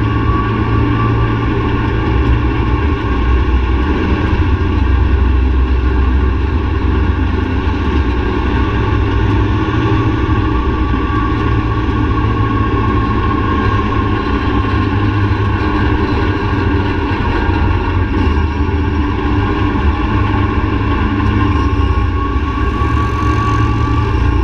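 Quad ATV engine running steadily at cruising speed, with a steady high whine over a deep rumble.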